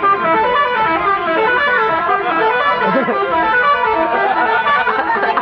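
Bus telolet horn, a multi-tone musical horn, playing a rapid melody of short stepped notes without a break.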